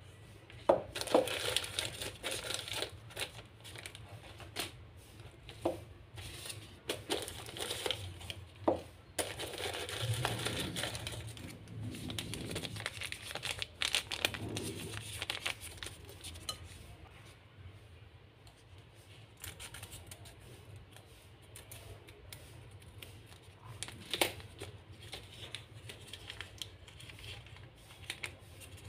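Small paper mystery packets being crinkled, unfolded and torn open by hand, in irregular rustles and tears with a few sharp clicks. The handling is busiest in the first half, quieter for a while after the middle, with a loud click near the end.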